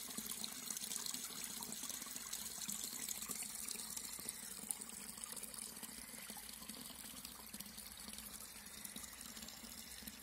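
A thin stream of water from a spring spout splashing steadily into a shallow pool, growing slightly fainter.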